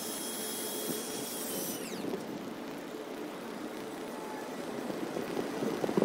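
Haulotte 4527A boom lift's hydraulic power unit whining steadily, then winding down and stopping about two seconds in, leaving gusty wind noise that grows near the end.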